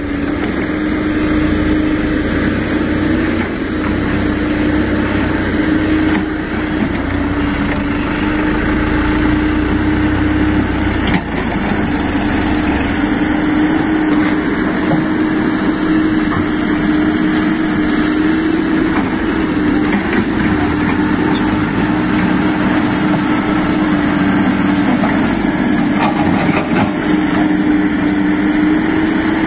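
Small dump truck's diesel engine running steadily with a constant drone; the low rumble eases about eleven seconds in. Near the end the engine is driving the hydraulic hoist that tips the loaded bed.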